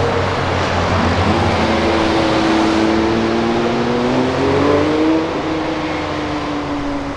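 Porsche 911 Speedster's flat-six engine accelerating past, its pitch rising steadily for a few seconds and then levelling off as it eases, over road and traffic noise.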